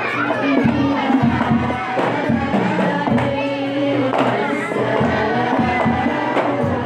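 A Hadrami-style Islamic devotional song (qasidah/sholawat) sung in Arabic over hand-drum and tambourine percussion, with the drum strokes steady throughout.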